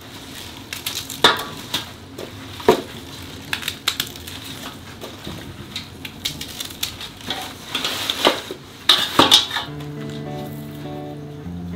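A small knife and green onion stalks knocking and scraping against a stainless steel basin as the roots are trimmed off, in irregular clicks and scrapes. Background music comes in near the end.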